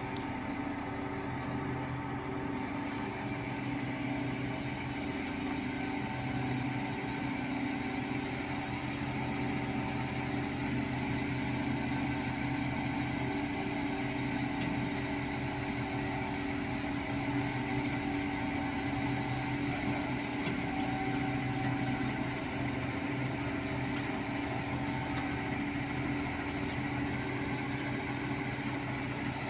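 Diesel engine of a truck-mounted crane running steadily at a constant speed, powering the hoist as it lifts a heavy water-tower column.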